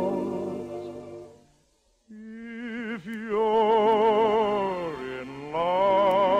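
Operetta-style singing with heavy vibrato over orchestral accompaniment, on a 1948 radio broadcast recording. A long held note fades away about a second and a half in, and after a brief pause a new phrase starts and is held.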